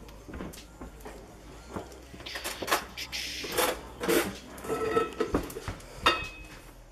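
Breakfast dishes being handled on a kitchen bench: scattered knocks and clicks, a short rushing hiss about two to three seconds in, then a few ringing clinks of crockery and cutlery near the end.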